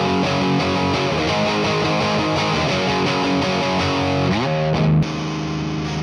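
Overdriven electric guitar played through a Satellite Amps Neutron tube amp with a JJ 12AT7 in the phase inverter slot and the volume at max. About five seconds in, it cuts abruptly to a quieter take of the same amp with a 12AX7 phase inverter and the volume at noon.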